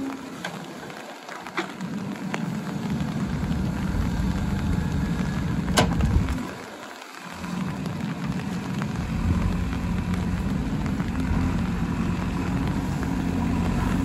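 Diesel engine of a JCB 3DX backhoe loader running under load as the backhoe arm works, building up a few seconds in and dipping briefly just after the middle, with a single sharp metallic knock about six seconds in.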